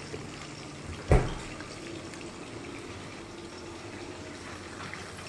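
Steady sizzling hiss of chicken wings deep-frying in hot oil, with one sharp knock about a second in.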